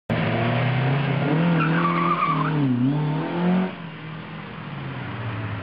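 Classic rally car's engine revving, its pitch dipping and rising again as the driver lifts off and accelerates, with a brief tyre squeal a couple of seconds in. The engine note falls away as the car pulls off, about two-thirds of the way through.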